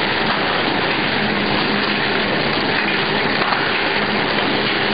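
Packaging machine and its conveyor running: a steady rushing noise with a faint low hum underneath.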